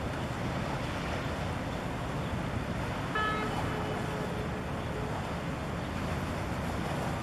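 Harbour ambience as a large ship passes close by: a steady low rumble mixed with wind and water noise. About three seconds in, a short pitched tone with several notes sounds, its lowest note lingering for about two seconds.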